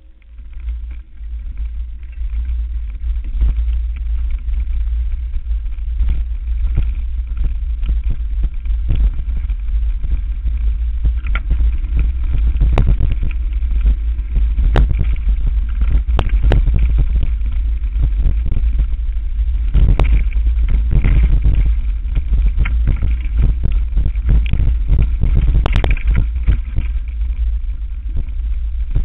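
Mountain bike descending a rough forest dirt trail at speed: heavy wind rumble on the bike-mounted camera's microphone, with rapid rattles and knocks from the bike jolting over roots and bumps. It grows louder over the first few seconds.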